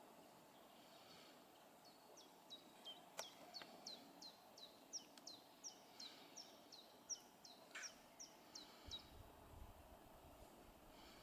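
A small bird singing a long run of about twenty short, high notes, each sliding downward, at roughly three a second, over a faint steady outdoor hiss.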